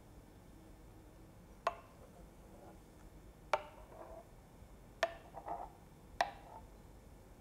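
Four light clinks with a short ring, a second or more apart, as the milk jug knocks against the ceramic cup while steamed milk is poured.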